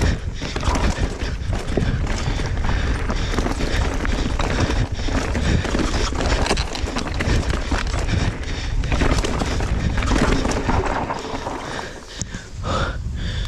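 Mountain bike riding fast down a rough, rocky trail: wind rushing on the microphone over tyre noise, with the bike clattering and knocking over rocks. The noise eases near the end.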